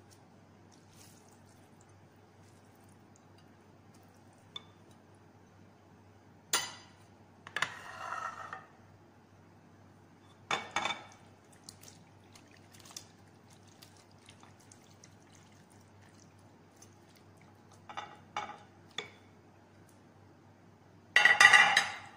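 Silicone spatula scraping green gelatin cubes and tapioca pearls out of a dish into a glass mixing bowl: a few short scrapes, knocks and wet plops, the longest and loudest about a second before the end.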